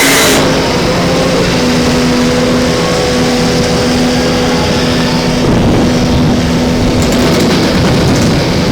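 A machine's motor running steadily with a whine that holds for several seconds and fades out near the end.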